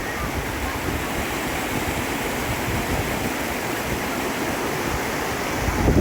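Floodwater rushing in a swollen mountain river: a steady, dense rush of water.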